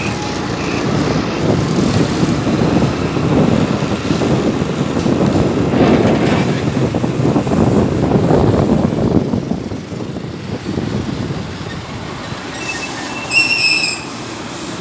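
Motorcycle engine running with wind and road rumble, heard from on the moving bike. A short high-pitched beep sounds near the end.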